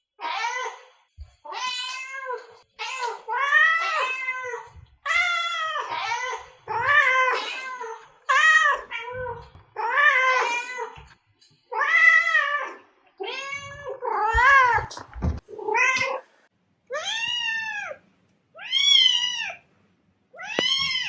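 Domestic cat meowing over and over: a long series of separate meows, each rising then falling in pitch, with short pauses between them. The meows near the end are higher-pitched.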